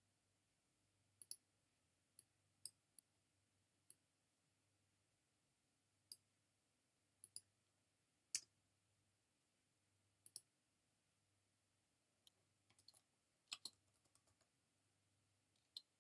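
Near silence broken by faint, scattered clicks of a computer mouse and keyboard keys, some in quick pairs.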